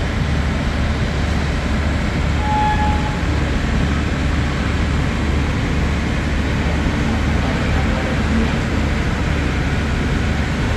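Steady low hum of a standing diesel passenger train running at the platform.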